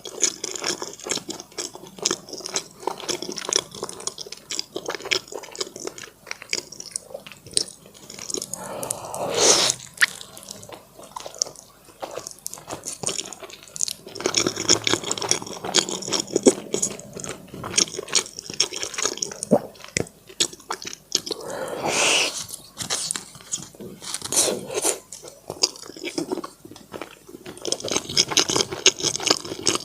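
Close-miked wet chewing and mouth sounds: soft, sticky food being eaten, with many small smacks and clicks. Two longer, louder wet sounds come about a third and three quarters of the way through.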